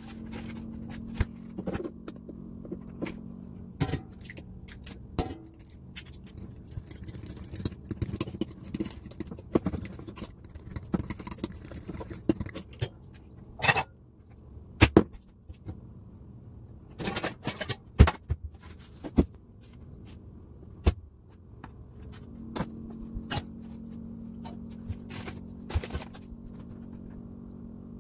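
Kitchen clatter: scattered knocks, clinks and scrapes of bowls and utensils being handled and set on a counter, over a steady low hum.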